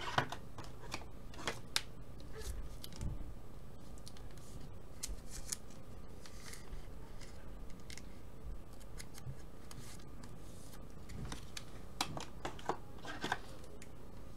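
Light handling noises of trading cards and plastic card holders: scattered clicks and rustles in a few bursts near the start and again near the end, over a faint steady room hiss.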